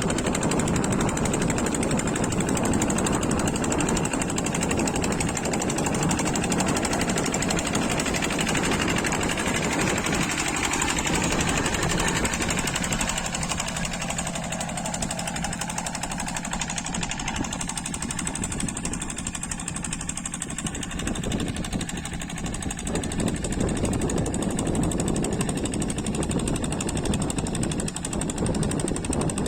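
Kubota diesel engine of a walking hand tractor chugging steadily under load while levelling a wet rice paddy, easing a little for a while in the middle.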